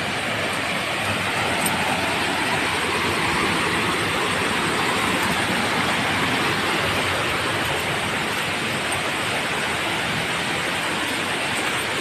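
Waterfall: water falling and splashing in a steady, loud rush of noise that does not change.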